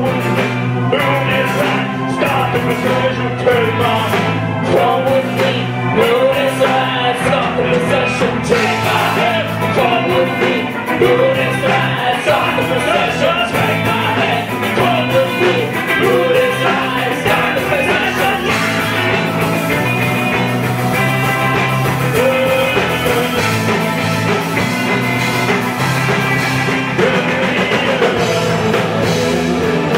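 Doom metal band playing live: electric guitar, bass guitar and drum kit, with a woman singing over them.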